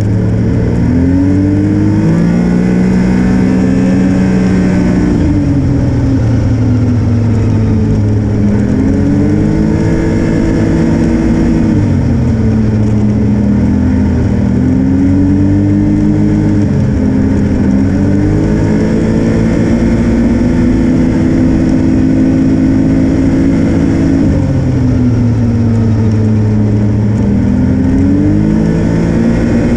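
Snowmobile engine running under way, its pitch rising and falling several times as the throttle is opened and eased off.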